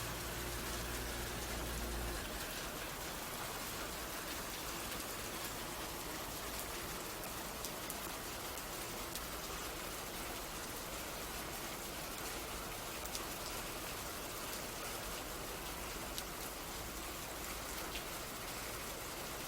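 Steady rain falling, an even hiss with occasional sharper drop ticks. A low hum sits under it for the first two seconds, then stops.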